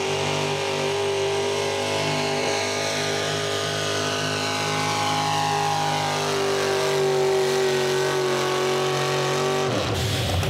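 Pro stock 4x4 pulling truck's engine, in a square-body Chevrolet pickup, running flat out at a steady high rpm as it drags a weight transfer sled down the track. A faint high whine falls in pitch through the middle. Near the end the steady engine note breaks off abruptly and a rougher noise takes over as the pull ends.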